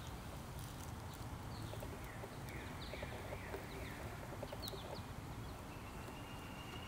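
Outdoor woodland ambience: a songbird gives a quick run of four down-slurred notes a few seconds in, then a few sharp high chips, over a steady low rumble. A thin, steady high tone begins near the end.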